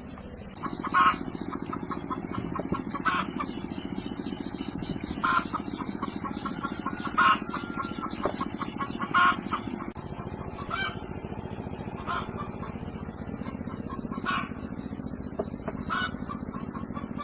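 Chickens clucking, short calls repeating about every two seconds with quick runs of clucks between them, over a steady low hum.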